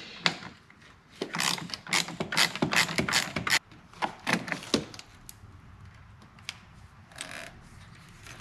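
Ratchet wrench with a 10 mm socket clicking in quick runs as the nut on the negative battery terminal is loosened to disconnect the battery. The clicking thins out after about five seconds.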